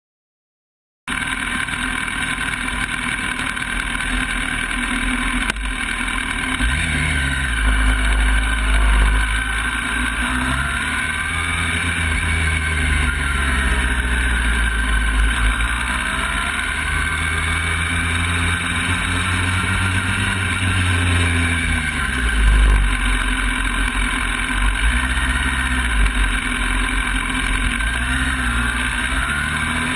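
Sport motorcycle engine heard from on board, accelerating and shifting up through the gears, its pitch rising and dropping back again and again, with a rushing noise of wind over the bike.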